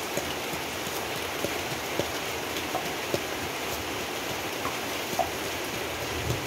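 Steady rain hiss, with a few sharp knocks scattered through it from a cleaver chopping on a wooden board and a wooden pestle pounding in an earthenware mortar.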